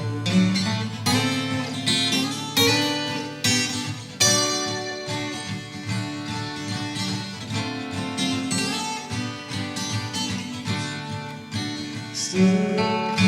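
Acoustic guitar playing a picked melodic passage over chords, with sharp plucked attacks and ringing notes, likely several overdubbed guitar parts in harmony.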